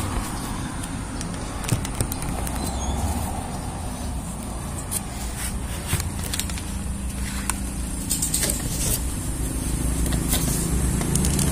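Scattered small clicks and light knocks of hands working the door trim panel, pressing to release a wiring connector, over a steady low rumble.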